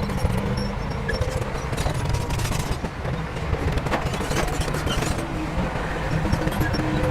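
Heavy diesel earthmoving machinery running, with a dense, rapid rattling clatter over a steady engine rumble.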